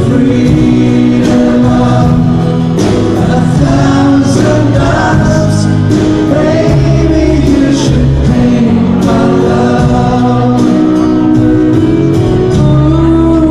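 Live pop ballad: a male lead vocal sung over piano and band accompaniment, with steady cymbal strokes, loud in a concert hall.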